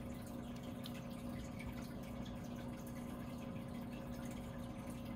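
A steady low hum with faint dripping water.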